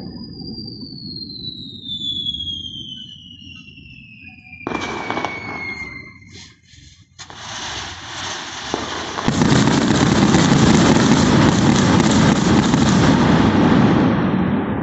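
Fireworks from a castillo: a whistle falls steadily in pitch over the first six seconds, then a short burst of pops. From about seven seconds in comes a dense rush of crackling, loud and steady from about nine seconds and easing off near the end.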